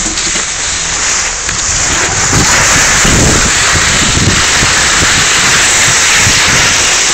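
Wind rushing and buffeting on a phone's microphone as it is carried downhill on skis, mixed with skis hissing over the snow. The noise grows louder about two seconds in.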